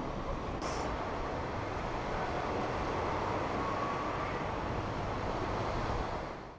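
Steady rushing outdoor ambience of wind and small waves washing onto a sandy beach, fading out quickly near the end.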